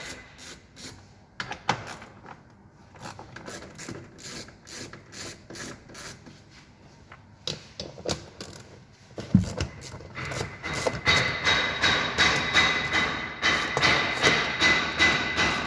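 Hand tools working on the car's 10 mm cover bolts: scattered metallic clicks and knocks, one heavier thud about nine seconds in, then a denser run of rapid clicking from about ten seconds in.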